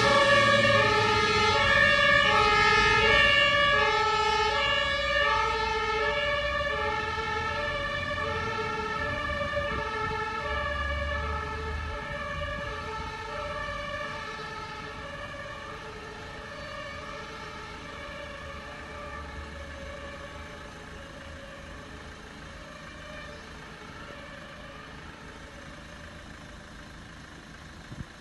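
German fire engine's two-tone Martinshorn siren alternating evenly between two notes. It fades steadily as the vehicles drive away.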